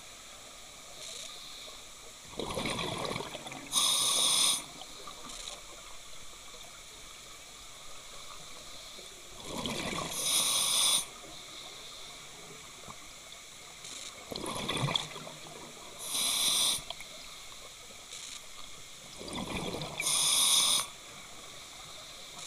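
Scuba diver breathing through an open-circuit regulator underwater: four breaths about five seconds apart, each a rush of air and exhaled bubbles with a hiss. A steady low hiss lies between the breaths.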